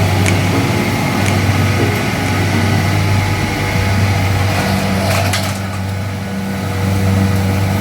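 An engine running steadily with a low, even hum, with a few sharp ticks over it.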